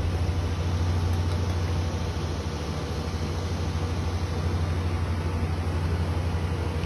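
A steady low hum of an engine or motor running, unchanging throughout.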